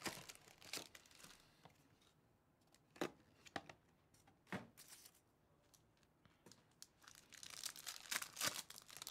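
A few light taps and rustles of cardboard and card packs being handled. From about seven seconds in, the wrapper of a Bowman Chrome baseball card pack tears open with a crinkling rip.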